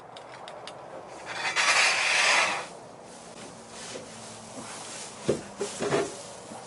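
A long scraping rustle of straw bedding being worked with a pitchfork, about a second and a half in, followed near the end by a few short sharp sounds.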